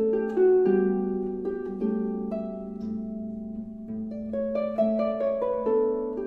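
Background music: a slow melody of notes and chords, each note starting sharply and fading out, over lower sustained notes.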